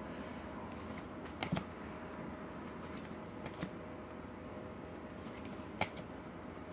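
Tarot cards handled in the hand, with a few scattered soft clicks and taps as cards are moved from the back of the stack to the front. A faint steady hum runs underneath.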